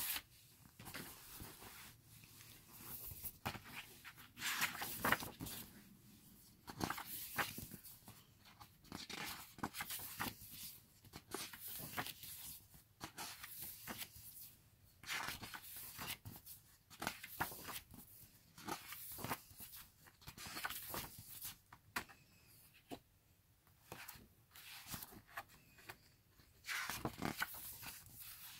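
Pages of a glossy album photobook being turned and pressed flat by hand: short paper rustles, swishes and soft taps coming every second or so.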